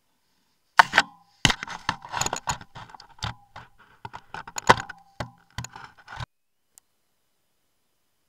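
A bear nosing and pawing a trail camera up against the lens: a rapid run of loud knocks, clicks and scrapes on the camera housing that stops abruptly about six seconds in.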